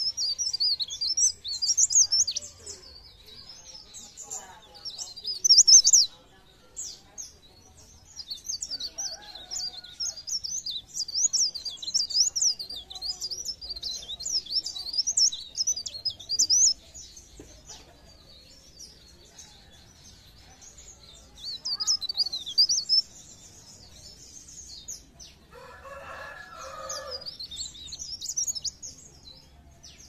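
Cikrak daun (mountain leaf warbler, the 'pare pare') singing: rapid, high-pitched twittering phrases in several bouts separated by short pauses. Near the end, a lower call from another bird comes in briefly.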